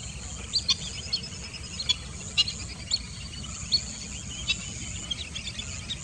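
Wetland birds calling: many short, sharp, high chirps at irregular intervals over a steady high insect drone, with a low rumble underneath.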